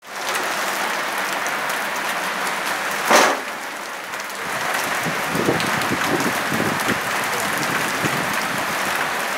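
Steady rushing of a flooded, overflowing stream, with a brief louder whoosh about three seconds in and rougher, more uneven churning from about five seconds on.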